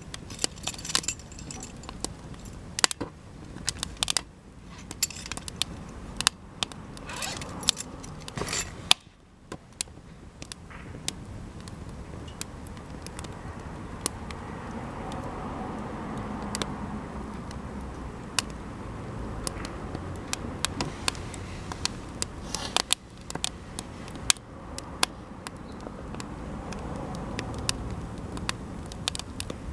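Cedar offcuts burning in a campfire, popping and crackling with irregular sharp snaps. After about nine seconds a steady rush of flame builds under the pops.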